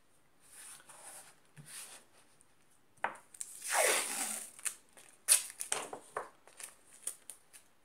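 Adhesive tape: soft rubbing as it is pressed onto paper, then a long, loud rip as a length is pulled off the roll about three and a half seconds in, followed by a run of sharp crackles as the strip is torn off and handled.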